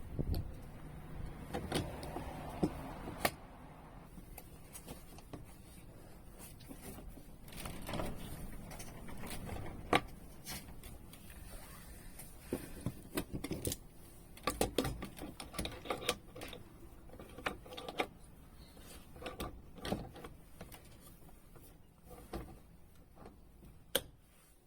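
Irregular light clicks and knocks, some coming in quick clusters, with a short patch of hiss about two seconds in.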